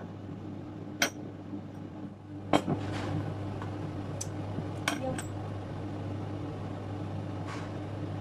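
A metal spoon clinking against a ceramic bowl as sauce is mixed: about half a dozen separate sharp clinks, the loudest a few seconds in, over a steady low hum.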